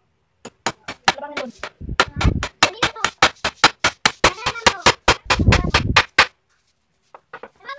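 Hammer striking the wooden sofa frame in a fast run of blows, about five a second, stopping about six seconds in.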